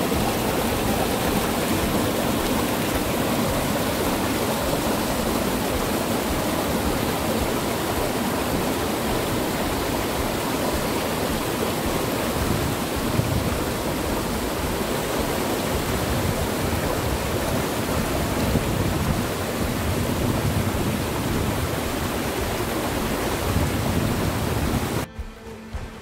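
Mountain stream rushing over rocks and small cascades: a steady rush of water that cuts off abruptly about a second before the end.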